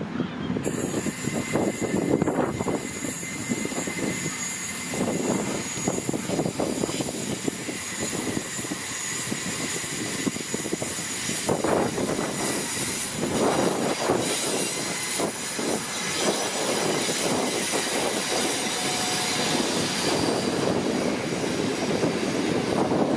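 A Virgin Trains class 221 Super Voyager diesel unit running past on the rails, its underfloor diesel engines and its wheels sounding together. A thin steady whine runs through the first ten seconds or so. Later another long passenger train goes by.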